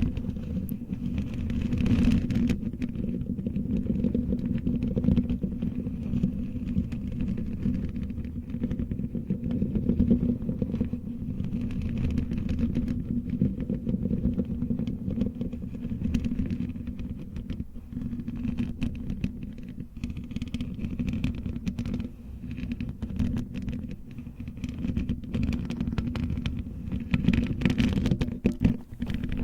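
Fingernails scratching steadily right at the microphone for ASMR, a continuous, mostly low-pitched scratching full of fine rapid ticks.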